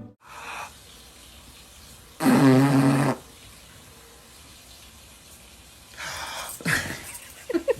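A dog vocalizing: one long, low, pitched moan about two seconds in, then shorter rough snorting sounds and a few brief high squeaks near the end.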